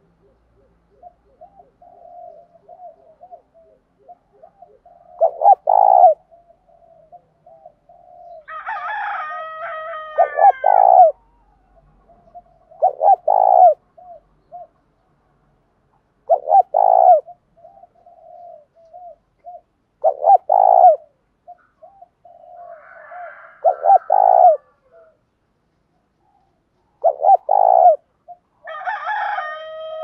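Spotted dove cooing as a decoy: soft runs of low notes, each building to a loud coo, seven times at about three-and-a-half-second intervals, a challenge call meant to provoke rival doves. Twice, about nine seconds in and near the end, a longer, higher call with a falling pitch sounds behind it.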